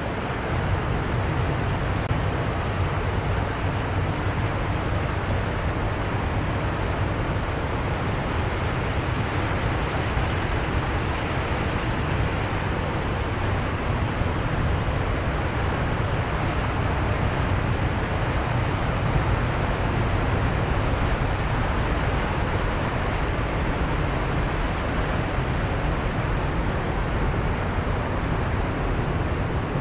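Steady rushing of churning water in a wastewater aeration tank, with a constant low rumble underneath.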